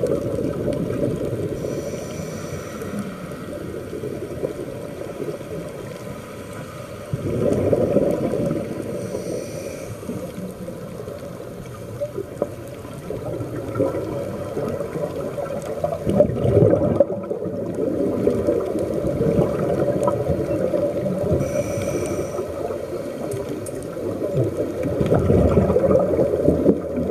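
Muffled water sloshing and gurgling, recorded by an action camera sealed in its waterproof case in the water. It sounds dull, with almost no treble, and swells louder about seven seconds in and again near the end.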